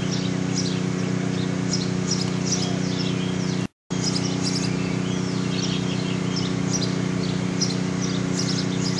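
Many birds chirping and calling over a steady low hum, with a brief cut to silence about four seconds in.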